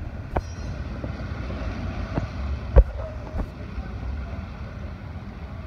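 Low rumble of a pack of track bicycles rolling over the wooden velodrome boards as the riders pass close by, with a few sharp knocks, the loudest about midway.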